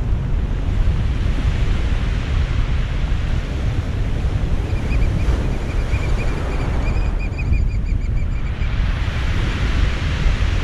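Surf breaking and washing over a cobble beach, with heavy wind rumble on the microphone. About halfway through, a fast, even run of high-pitched ticking lasts a few seconds.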